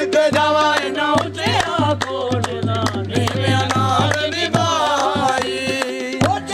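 Qawwali: voices singing over tabla drumming.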